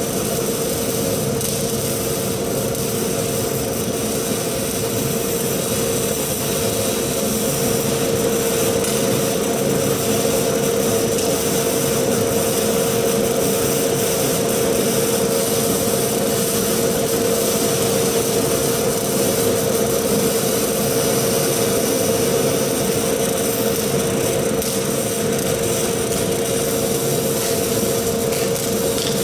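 PS 150 fume extractor's 1.5 HP blower running steadily, drawing air through its fume arm, a constant drone with a steady mid-pitched whine. Over it, the hiss and crackle of CO2 MIG welding.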